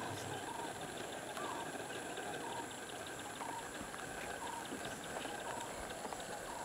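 Outdoor wild-grassland ambience: a steady high drone and hiss, with a short, even-pitched call repeating about once a second and scattered faint clicks.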